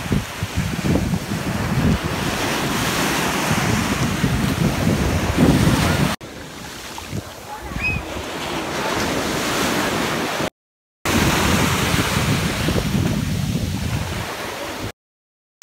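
Small waves washing up over a sandy beach, with wind buffeting the phone's microphone in gusts. The sound drops a little about six seconds in and cuts out completely for a moment twice later on.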